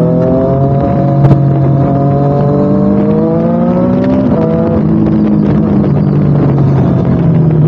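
Triumph Street Triple RS inline-three engine running through a Spark slip-on exhaust, its pitch rising slowly for about four seconds and then dropping sharply just past halfway, as in a gear change.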